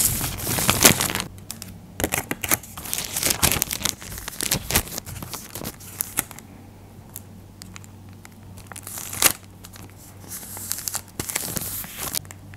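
Crinkling and rustling of a clear, tape-laminated paper hairbrush cutout being handled and pressed onto a paper notebook page, in irregular crisp strokes with quieter gaps between.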